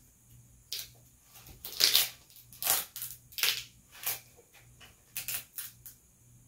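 Gamma Hi-Tech Gel Grip tape being pulled and worked along a pickleball paddle handle: a series of short, sticky crackling rips, the loudest about two seconds in.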